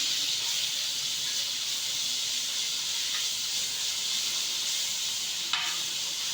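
Green chilli, ginger and garlic sizzling steadily in hot ghee and oil in a pan, with a short utensil click near the end.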